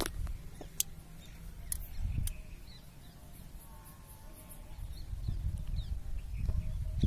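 Low rumble of wind and handling on a phone microphone, growing louder over the last couple of seconds, with a few sharp clicks near the start and faint bird chirps in the background.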